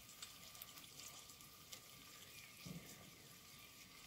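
Faint sizzling and crackling from a pot of chicken curry cooking on a camping stove, with scattered small pops and one soft low thump about two-thirds of the way through.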